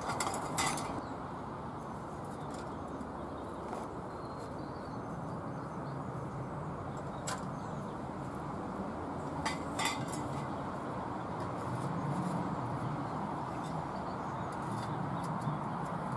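Occasional light metallic clinks and knocks as metal stovepipe sections are handled and fitted onto a portable wood-burning camp stove, over a steady outdoor background hiss. The sharpest clinks come right at the start and about ten seconds in.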